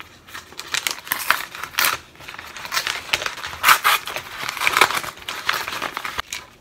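Padded paper envelope crinkling and rustling in irregular bursts as it is slit open with a utility knife and handled, the loudest crackles a little past the middle.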